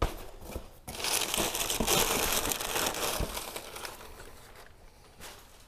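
Packaging crinkling and rustling as a shipping box is opened and unpacked. It is loudest in the middle and dies away after about three seconds, with a couple of light knocks just before.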